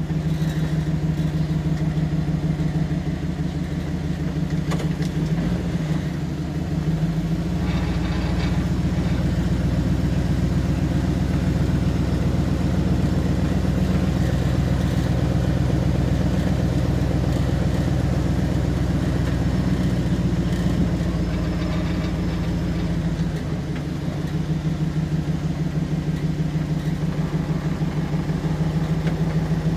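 Dodge pickup truck engine running steadily with a regular pulsing beat as the truck crawls through soft beach sand in two-wheel drive. It sounds heavier under more load from about a quarter of the way in until about three-quarters through, then eases briefly.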